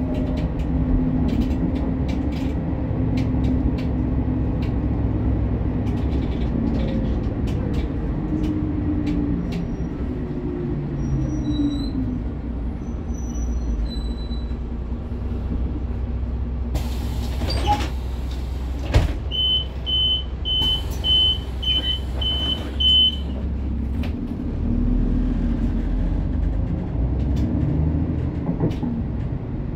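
Inside a Credo Econell 12 diesel bus: the engine runs with its pitch falling as the bus slows to a stop. Then compressed air hisses and the doors clunk, and a door warning beeper sounds eight short, even beeps at about two a second. Near the end the engine's rumble rises again.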